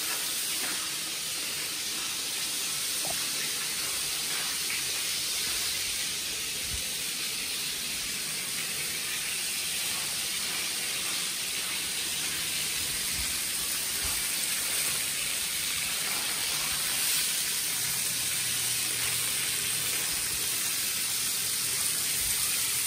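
Water spraying in a steady jet onto a wet concrete floor and the foot of a wall, a constant hiss.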